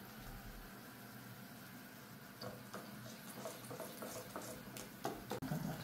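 Pot of soup boiling gently, faint bubbling with irregular small pops and clicks from about two seconds in.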